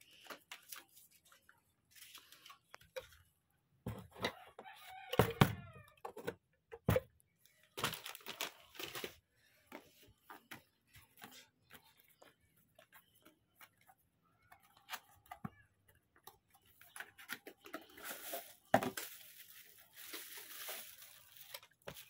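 Packaging being handled: a plastic bag rustling, with scattered clicks and light knocks from pedal boxes and a metal pedal, and a sharp knock a little before the end. A short wavering call with a bending pitch comes about five seconds in and is the loudest sound; fainter calls like it come later.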